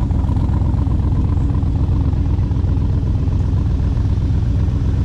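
An engine running steadily at idle, a continuous low rumble with a fast, even pulse.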